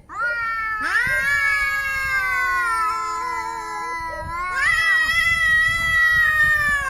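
Cats yowling in a fight: long, drawn-out caterwauls that swoop up in pitch about a second in and again near the end, then cut off suddenly.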